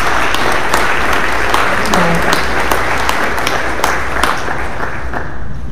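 Audience applauding, a dense patter of hand claps that thins out near the end.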